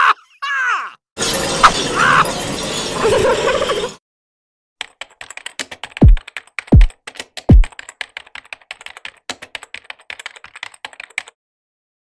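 Animation sound effects: a short sweep that falls in pitch, a few seconds of dense noisy sound, then rapid computer keyboard typing lasting about six seconds, with three deep booms falling in pitch, each about 0.7 s apart, early in the typing.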